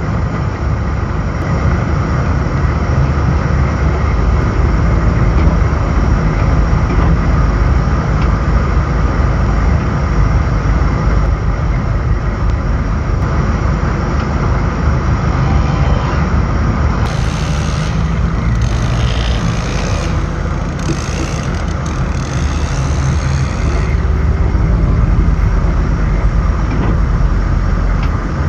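AM General M998 Humvee's V8 diesel running as it drives, a steady heavy rumble with road noise. Several seconds of extra hissing come and go about two-thirds of the way through.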